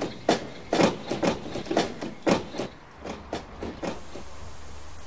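Car doors being opened and slammed shut one after another, about ten bangs in under four seconds, then they stop.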